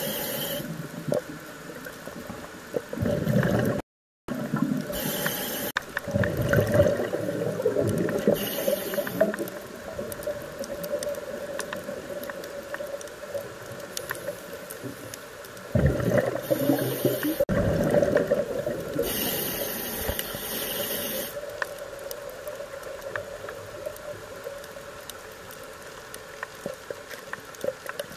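Scuba diver's breathing heard underwater: a regulator's exhaled bubbles gurgling and rushing in bursts every few seconds over a steady murky water noise.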